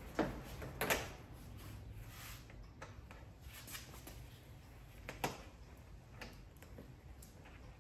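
Plastic engine-bay cover panel being pressed back into place by hand: a few sharp clicks and knocks, the loudest two within the first second and another about five seconds in, with lighter handling taps between.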